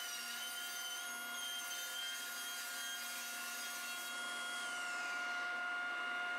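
Table saw running and ripping a long bird's eye maple board to width, a steady whine from the spinning blade and motor under the cut.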